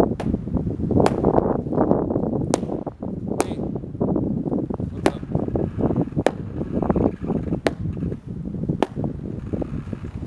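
A latex LARP sword repeatedly smacking a polyurethane foam cuirass, about eight sharp hits a second or so apart, over a steady low rumble.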